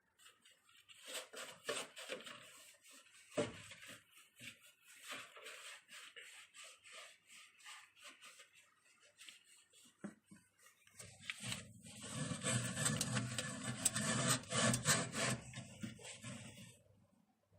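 Scrubbing and wiping the inside of a microwave oven, in repeated short rubbing strokes that turn faster and louder about eleven seconds in, then stop shortly before the end.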